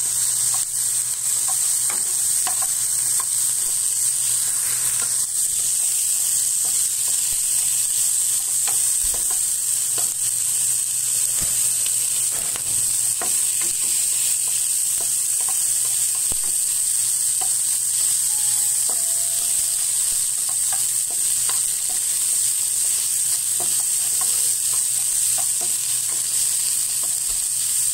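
Pieces of meat and sliced onion sizzling steadily in a frying pan as they are stir-fried, with light clicks of the utensil against the pan now and then.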